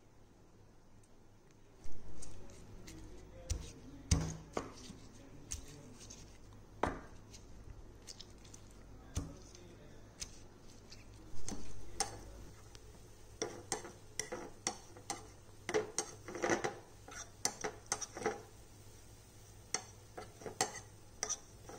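Stone pestle knocking and grinding against a ceramic bowl as dried red chillies are crushed into paste: irregular sharp knocks and clicks, sparse at first and coming thick and fast in the second half. Near the end a metal spoon clinks against the bowl.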